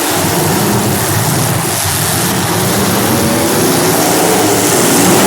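Demolition derby cars' engines running and revving loudly, several pitches wavering over one another, growing a little louder near the end.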